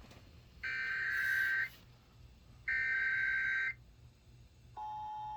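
Emergency Alert System SAME header: two one-second bursts of screeching digital data tones. Near the end the steady two-tone EAS attention signal begins, announcing a tornado warning.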